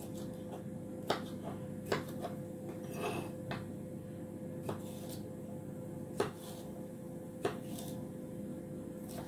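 Chef's knife dicing a bell pepper on a wooden chopping board: sharp knocks of the blade on the board about once a second, unevenly spaced, over a steady low hum.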